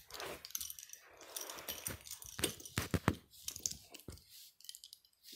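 Plastic K'nex rods and connectors clicking and rattling against each other as hands rummage through a pile of pieces, with a short rustle and then a run of sharper clacks about halfway through.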